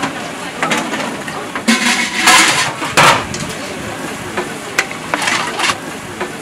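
Kitchen clatter at a street-food stall: scattered knocks and clanks of metal pots and utensils over a steady noisy background, with a louder clatter a little after two seconds and another at three.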